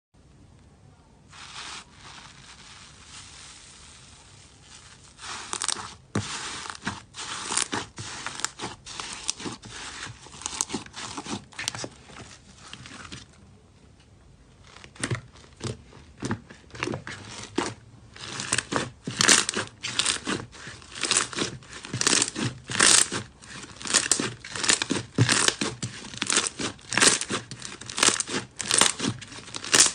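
Slime being squeezed and stretched by hand, making sticky crackling and popping sounds in quick repeated bursts. The bursts come sparser and softer at first and turn denser and louder from about two-thirds of the way in.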